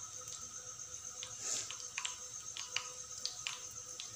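A spoonful of gram-flour pakora batter frying in hot ghee in a flat pan: light, irregular crackles and pops from the oil, over a faint steady high whine.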